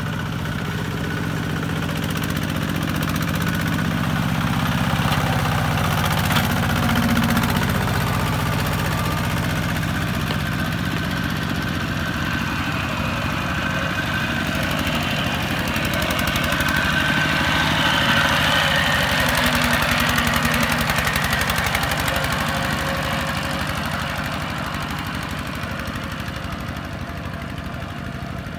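Kubota ZT155 walking tractor's single-cylinder diesel engine running steadily under load as it hauls a loaded rice trailer through mud, louder in the middle and fading near the end as it pulls away.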